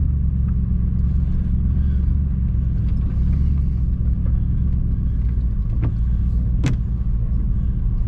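Low steady rumble of a road vehicle's engine and tyres, heard from inside the cab while driving slowly along a dirt track. A couple of sharp clicks come near the end.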